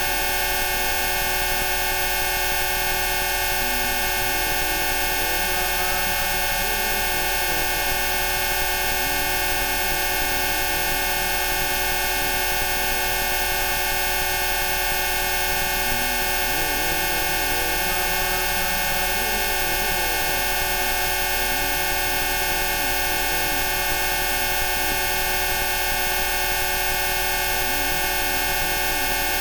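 A dense cluster of steady electronic tones (Rife frequencies) sounding together without change, like a sustained chord. Faint wavering tones drift up and down in the lower middle range beneath them.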